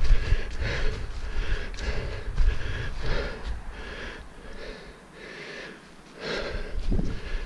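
A runner's heavy, rhythmic panting close to the microphone, about two breaths a second, over low thumps from the running that stop for a second or two past the middle before resuming.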